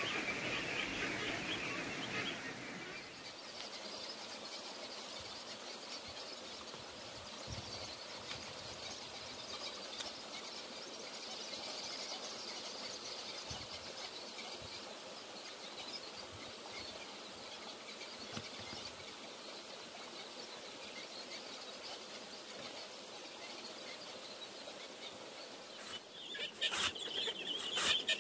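Quiet farmyard ambience with chickens clucking faintly under a steady high hiss. A few sharp knocks or taps come near the end.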